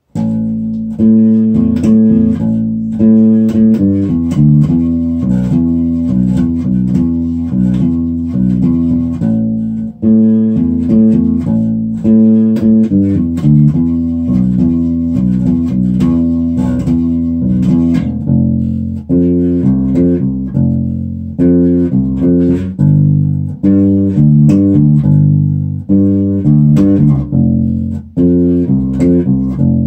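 Godin Shifter Classic four-string electric bass playing a pop song's verse line, plucked notes in a steady rhythm built on each chord's root, octave and fifth.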